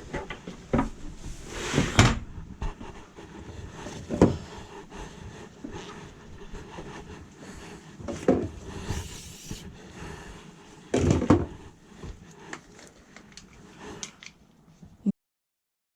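Handling noise on the camera's microphone: irregular knocks, bumps and rubbing, with a few louder thumps. The sound cuts off suddenly to silence near the end.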